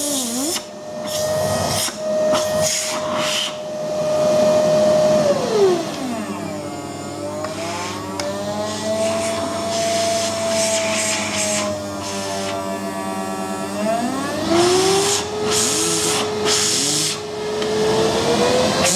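Philips vacuum cleaner running with its motor's bearings freshly replaced, a steady whine that drops in pitch, rises again and settles lower as the motor speed changes several times. Its brushes are not yet bedded in after the commutator was skimmed, so the motor runs somewhat unevenly.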